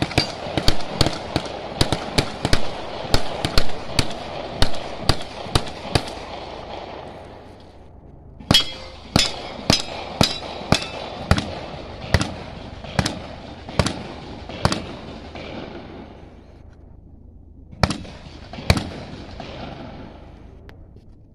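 Rifle fire from several shooters, sharp shots echoing off the surroundings: a dense, irregular run of shots two to three a second, a short pause about a third of the way in, then a slower run of shots roughly every half second, and two last shots near the end.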